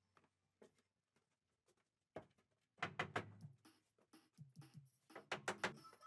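Scattered knocks and clicks, with a quick run of loud taps about three seconds in and another run near the end.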